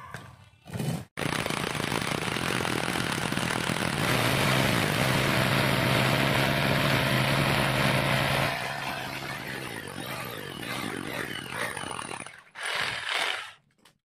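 RYU RRH26 rotary hammer drill hammer-drilling a large masonry bit into a lump of concrete. It runs for about eleven seconds, loudest in the middle and easing off later, then gives one short final burst near the end before cutting off.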